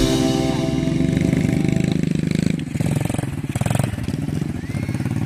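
Small quad bike (ATV) engine running at low speed, its note dropping and wavering about two and a half seconds in as the throttle eases.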